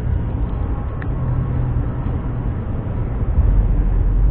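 Steady driving noise from inside a moving vehicle's cabin: a low engine hum and tyre noise on wet pavement.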